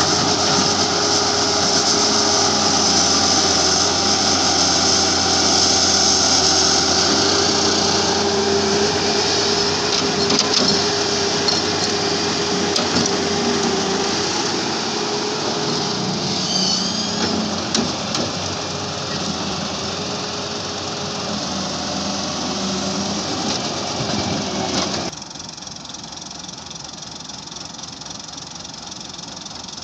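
Diesel engine of a Halla HE 130W wheeled excavator running under working load, with a steady high whine over it. About 25 seconds in the level drops abruptly to a quieter, steady engine run.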